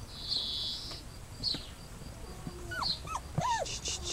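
Dobermann puppies whimpering: a short high squeal about half a second in, then a few brief whines that rise and fall in pitch about three seconds in.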